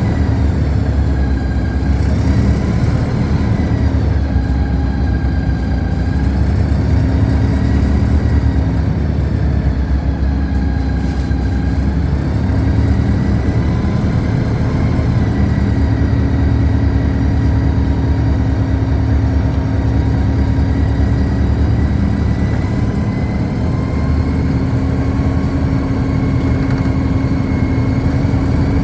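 City bus running, heard from inside the passenger cabin: a steady low rumble with a whine that slowly rises and falls in pitch as the bus speeds up and slows.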